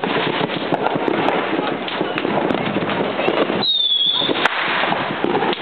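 Many fireworks and firecrackers going off all around at once, a dense, continuous crackling and popping. A brief high whistle comes about two-thirds of the way through.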